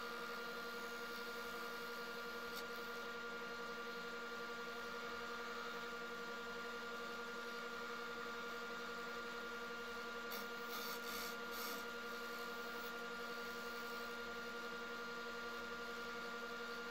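Wood lathe running with a steady hum while a gouge cuts the spinning cactus-and-resin egg blank, a few short scratchy bursts of cutting coming a little past the middle.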